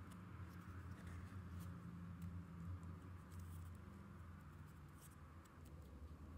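Near silence: faint light ticks and scrapes of a wooden stick spreading epoxy onto a metal bolt, over a low steady hum.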